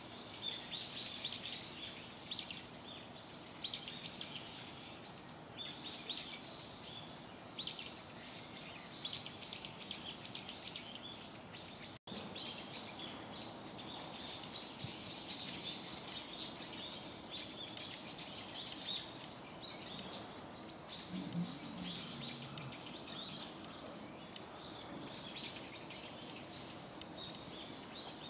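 Small birds chirping and twittering in quick, high-pitched calls over a steady outdoor hiss. The sound drops out for an instant about twelve seconds in.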